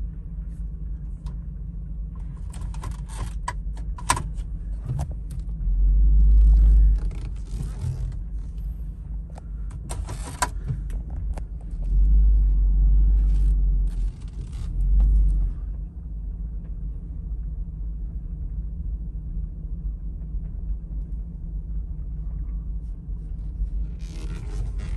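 Hummer H2 rolling slowly, heard from inside the cabin: a steady low engine rumble that swells louder three times, about 6, 12 and 15 seconds in. Scattered clicks and light rattles come between about 2 and 11 seconds in and again near the end.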